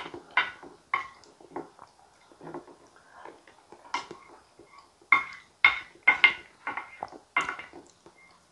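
Wooden spoon scraping and tapping against a ceramic platter, gathering up thick sweet potato soup. The strikes come a few at a time, then in a quicker run of about eight in the second half, several with a short ring.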